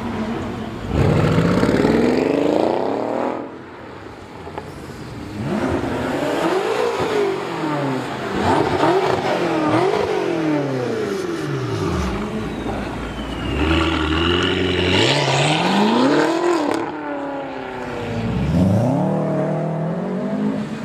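High-performance car engines accelerating hard with loud exhausts. The pitch climbs and drops again about six times as the cars rev and pull away, with a brief quieter lull a few seconds in.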